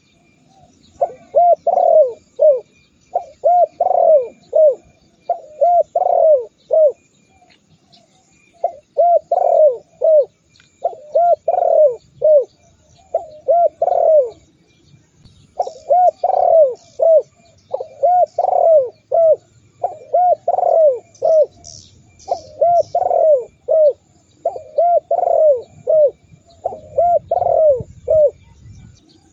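Spotted dove (tekukur) cooing: a run of short phrases of three or four quick, arching coos, about one phrase a second, with a short pause about a quarter of the way in and another around halfway. Faint high chirps of small birds come in briefly in the middle.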